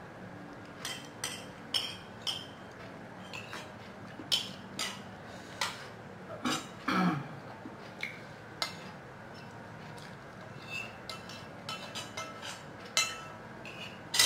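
Metal spoon clinking and scraping against a ceramic plate while eating, in scattered light clinks at irregular intervals. A short sound falling in pitch comes about seven seconds in.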